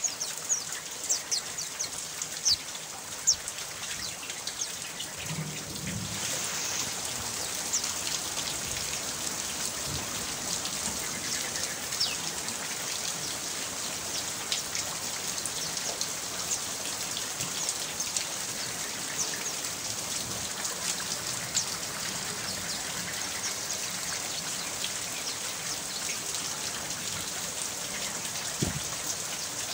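Steady rain: an even hiss with many small, sharp drop ticks, a few louder drops in the first few seconds.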